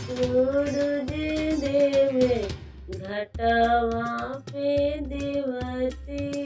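Bhojpuri Chhath devotional song: a voice sings long, held notes with a wavering pitch over a steady percussion beat, pausing briefly about three seconds in.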